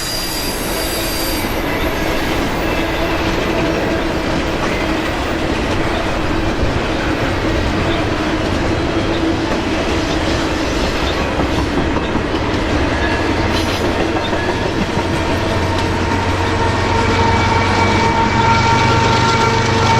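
Freight train cars rolling past with continuous wheel and rail noise and some wheel squeal. Near the end a low steady hum and a few steady tones come in and grow louder.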